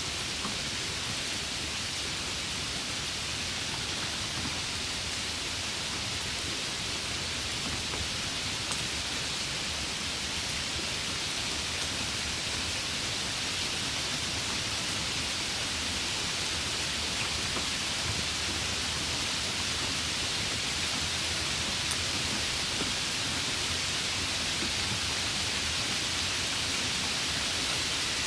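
Steady rain falling by a river: an even hiss of rainfall over running water, with a few faint drop ticks.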